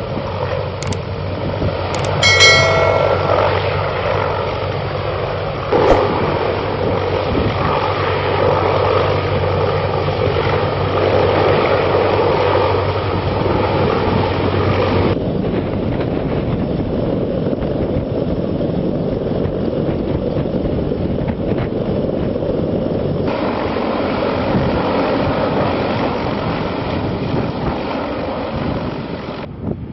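A CH-53-series heavy-lift helicopter's rotor and turbine engines running steadily and loudly as it hovers low with a vehicle slung beneath it, then climbs away. A short high tone sounds about two seconds in, and the sound changes abruptly about halfway through and again later.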